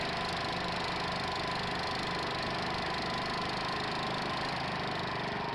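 Wheel Horse C120 garden tractor's engine idling steadily.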